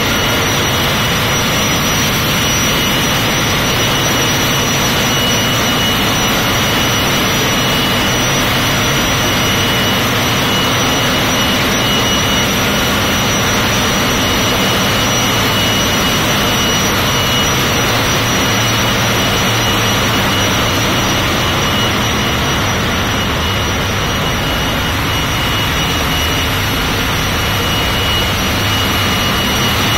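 Very noisy, steady roar of a container ship's engine room, with its large diesel engines and machinery running, and a constant high-pitched whine on top.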